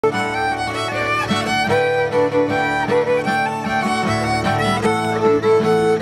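Violin playing a tune.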